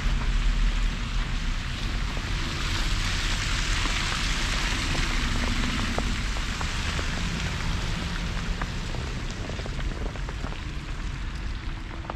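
Street ambience on snowy, slushy roads: a steady wet hiss like tyres on slush over a low traffic rumble, the hiss swelling a few seconds in.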